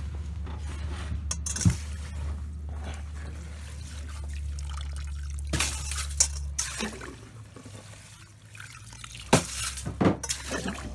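Slotted metal ice scoop skimming slush out of an ice-fishing hole: water sloshing and dripping through the scoop, with several sharp knocks as it strikes the ice or the hole's edge. A low steady hum underneath drops away about two-thirds of the way through.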